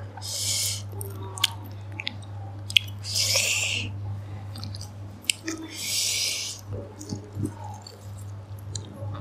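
A person eating boiled prawns up close: chewing and mouth clicks, with three short hissing bursts near the start, about three seconds in and about six seconds in, over a steady low hum.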